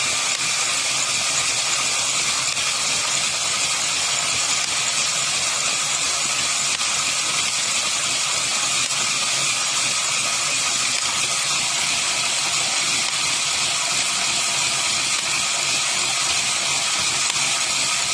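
Cordless drill cranking an Addi Express Professional 22-needle knitting machine through a clip-on adapter, knitting row after row. The drill motor and the turning machine make a steady, loud whir with no break.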